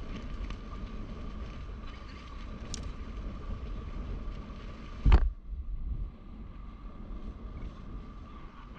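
Wind rumbling on the microphone, with a faint steady high whine and one sharp knock about five seconds in.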